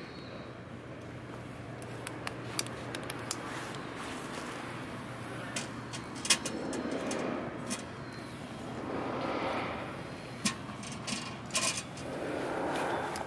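Wood fire crackling in the stainless-steel firebox of a Winnerwell Nomad View tent stove, with scattered sharp pops, while split logs are pushed in by hand, knocking and scraping against the steel. A steady low hum runs underneath.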